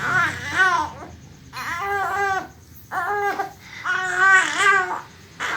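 A young child fussing and crying in a run of short, high-pitched, rising-and-falling wails, mostly in pairs with short breaths between.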